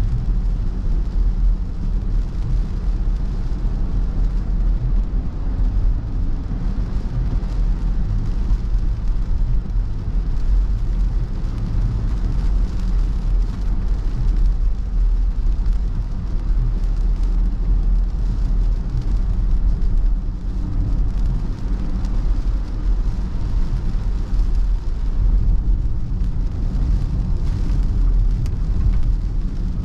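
Steady road noise inside a car driving through rain: a low rumble of engine and tyres with the hiss of tyres on the wet road.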